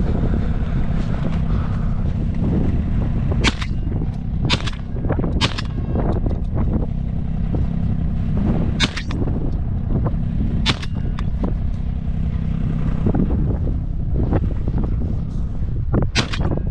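Footsteps crunching on crusted spring snow, heard as irregular sharp crunches over a steady low rumble.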